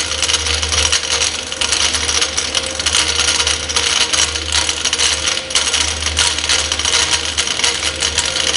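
Fast, continuous metallic rattling over a low steady rumble: a vehicle rattle of the kind heard when braking.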